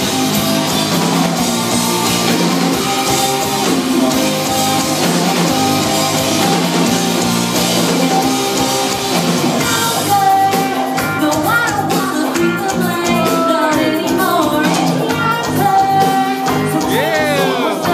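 Live rock band with a singer playing loudly on an outdoor stage, heard from within the crowd. The dense full-band sound gives way to a sparser passage with more prominent vocal lines about ten seconds in.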